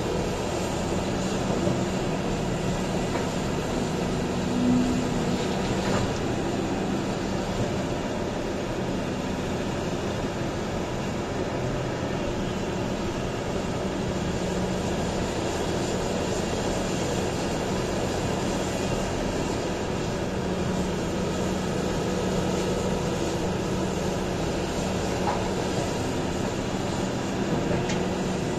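Heavy diesel mining machinery running steadily: a continuous engine drone.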